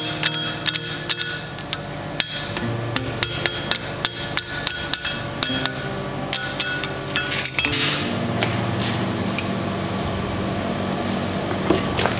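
Hand hammer blows on red-hot mild steel, forming a ring around a post set in the anvil: a quick run of strikes, each ringing briefly. After about eight seconds the strikes mostly stop and a steady rushing noise takes over, with a few strikes near the end.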